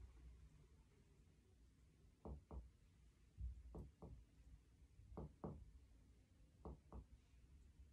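Faint finger-on-finger percussion of a patient's chest: four pairs of soft taps, two quick strikes each, the pairs about a second and a half apart. This is topographic percussion down the posterior axillary line to find the lower border of the lung.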